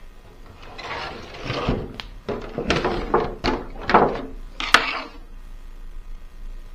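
Marker pen drawn along a clear polycarbonate RC car body shell: a series of short scratchy strokes, with a couple of sharp clicks from the shell being handled.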